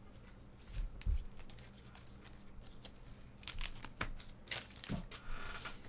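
Trading card pack wrapper crinkling and tearing as a pack is opened, with a couple of soft knocks about a second in.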